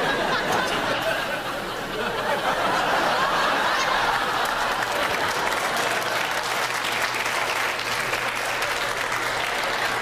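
Studio audience laughing and applauding, a sustained wave that comes in suddenly and holds steady throughout.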